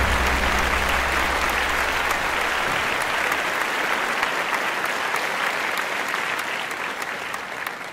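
Crowd applauding, a dense continuous clapping that slowly fades toward the end. Underneath, a deep low rumble dies away about two and a half seconds in.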